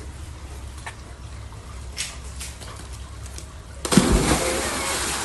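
A large splash into a swimming pool about four seconds in, with the water churning for a second or so, after a low steady rumble.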